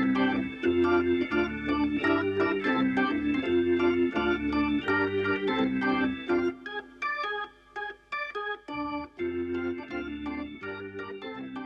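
Background music: an organ-led instrumental with a steady beat and bass line, which drops out for a moment about two-thirds of the way through before coming back and fading.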